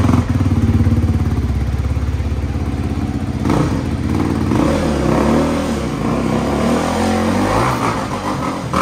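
Honda 250 dirt bike's four-stroke single-cylinder engine running at low revs while it is ridden slowly, at first a steady idle, then with a few short throttle blips in the second half.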